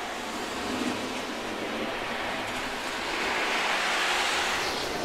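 O gauge model train, a Lionel diesel locomotive pulling freight cars and a caboose, running along three-rail track with a steady rolling whir. It swells louder for a second or so in the middle as it passes close by, then eases off.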